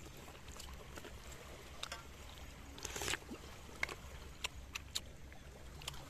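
Metal spoon clinking and scraping against a metal wok and plates, a short sharp click every second or so with one longer scrape about three seconds in, over a steady low rumble.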